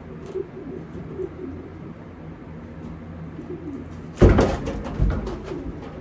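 Pigeons cooing, a low warbling coo repeating on and off over a steady low hum. About four seconds in comes a sudden loud rustling burst, followed by a few quick fluttering strokes.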